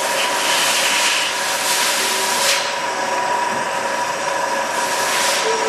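Amada HA250W automatic hydraulic horizontal band saw running, with a steady whine and a rasping hiss as its blade cuts through metal bar stock.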